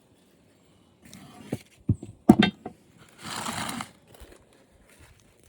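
Knocks and clatter of parts being handled while an old TV is taken apart, loudest about two seconds in, followed by a short scraping rustle of just under a second.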